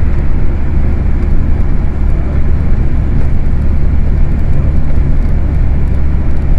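Steady, deep rumble of road and engine noise inside a vehicle travelling at highway speed.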